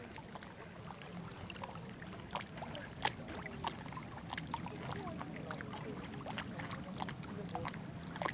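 Lake water lapping at the shore in small, irregular splashes over a steady low background.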